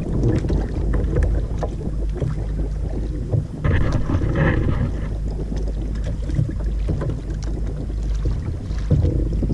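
Wind buffeting the microphone on open water, with water slapping around a kayak's hull and scattered small knocks. About four seconds in, a short higher-pitched tone rises above it for about a second.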